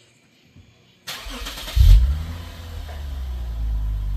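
Lexus GS350's 3.5-litre V6 started through a newly fitted aftermarket axle-back exhaust, heard at the tailpipes: about a second in the starter cranks briefly, the engine catches with a short rev flare, then settles into a steady, deep-toned idle.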